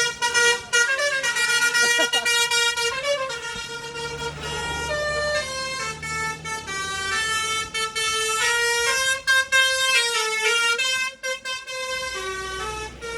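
Bus 'telolet' horn: a multi-tone air horn playing a stepping melody of held notes, with a short break near the end. A low engine rumble runs underneath for a few seconds in the middle.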